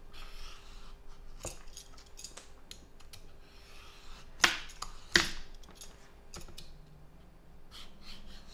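Titan vegetable peeler scraping the tough skin off a mature zucchini rampicante squash in rasping strokes. Several sharp knocks and clicks come in between, the loudest about four and a half seconds in.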